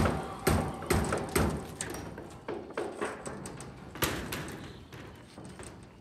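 Footsteps thudding on plywood formwork decking, about two a second, followed by a few scattered knocks.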